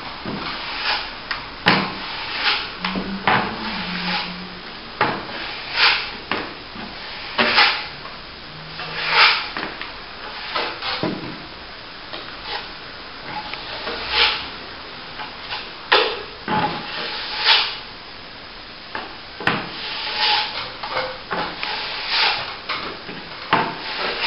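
Steel plastering trowel scraping over a wet top coat of plaster in repeated short strokes, about one every second or two.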